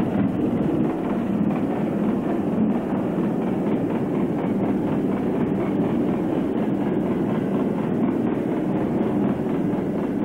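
Train running along the track: a steady rumble with faint repeated clicks from the wheels.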